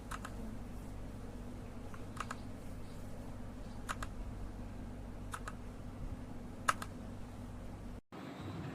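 Redragon K617 FIZZ 60% mechanical keyboard, with single keys pressed one at a time: a sharp clack every second or two over a steady low hum. The sound cuts out briefly near the end.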